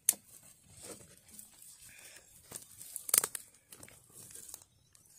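Dry twigs snapping and crackling as they are fed into a small cooking fire. There are two loud sharp snaps, one just after the start and one about three seconds in, with lighter crackles between.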